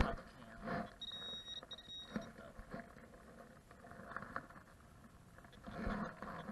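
A high electronic metal-detector beep held for about a second, with a short break in it, as the detector sounds on a target in the dug soil. Faint rustling and crumbling of loose dirt being sifted by hand around it.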